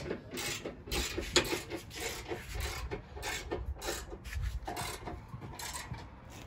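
Hand ratchet wrench clicking in quick, repeated strokes as bumper bolts are tightened, easing off near the end.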